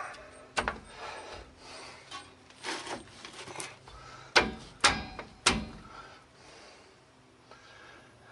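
Sharp metallic clicks and clacks from the shoes and return springs of a truck's rear drum brake as they are pushed and worked into place by hand, with a short scrape near the middle. The loudest clacks come about four to five and a half seconds in, then it goes quiet.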